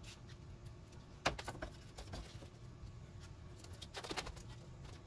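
A few light knocks and taps from handling a wooden strip and a cordless drill, a couple about a second in and a cluster near four seconds as the strip is set against the ceiling.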